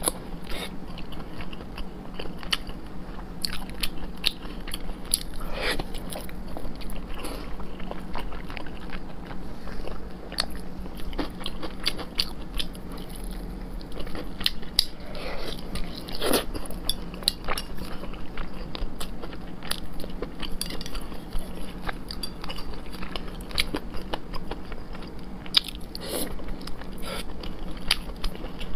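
Close-miked biting and chewing of braised pork belly: a dense, irregular run of small mouth clicks, with a few louder ones, over a steady low hum.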